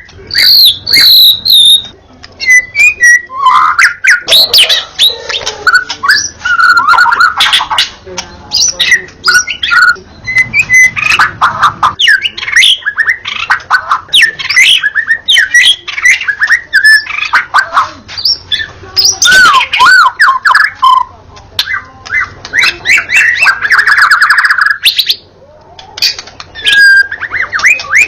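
White-rumped shama singing a loud, nearly continuous, varied song of rich whistles and rapid clicking notes, with short breaks about two seconds in and near the end.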